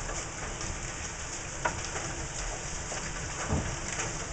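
Rain and hail falling steadily on grass and paving, with a few sharper hits standing out from the steady patter.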